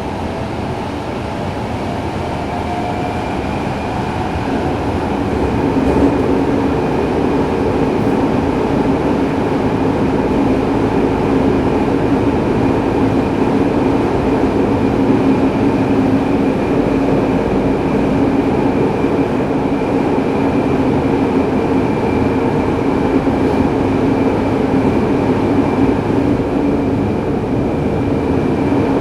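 Tokyo Metro 03 series subway car with IGBT-VVVF traction control, heard from inside the car while it runs through the tunnel: rumble and wheel noise with a steady motor whine, growing louder over the first six seconds and then running steadily.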